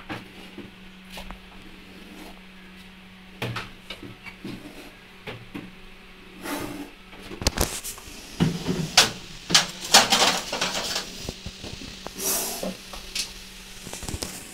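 A metal rod knocking, clattering and scraping against a galvanised metal drum and the bricks beneath it as a snake is prodded out from behind the drum, with a few scattered knocks at first and a dense run of clatter and scraping in the second half. A steady low hum runs underneath.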